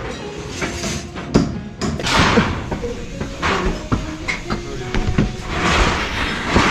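A euroform formwork panel knocking and scraping as it is carried on the shoulder up a stairwell, with a few sharp knocks and two long, heavy breaths from the straining carrier. Faint background music runs underneath.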